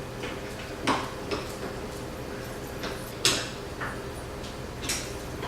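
A few separate knocks and clicks of hard parts being handled as a vanity mirror is put together, the loudest a little over three seconds in, over a faint steady hum.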